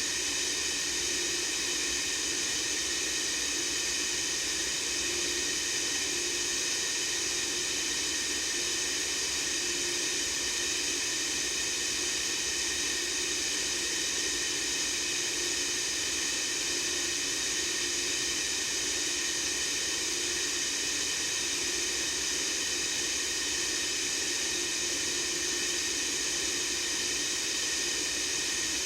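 Steady white noise hiss, brightest in the high range, unchanging throughout, with a faint low hum that swells softly every couple of seconds.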